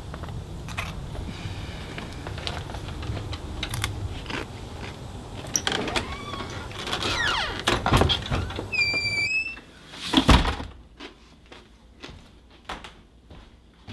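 Door and handling sounds: rustling with scattered clicks and knocks, a brief high squeak, then a door shutting with a loud thud about ten seconds in, followed by a few faint clicks.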